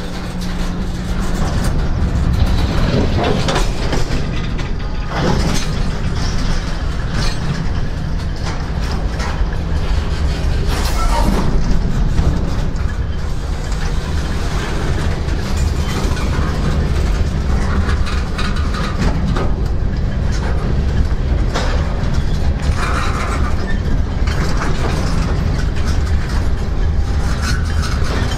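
A passing freight train's cars rolling by, their wheels clicking over the rail joints now and then over a steady low rumble.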